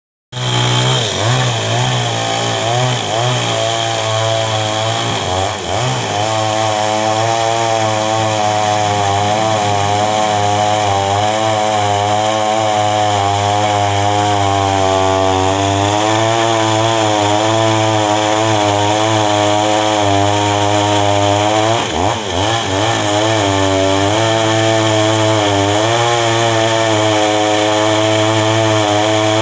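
Two-stroke chainsaw engine running at high revs, its pitch wavering and dipping several times in the first few seconds and again briefly past the middle, then holding steady.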